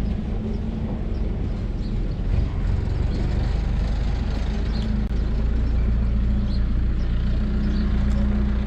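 An engine running steadily with a deep, even rumble and hum.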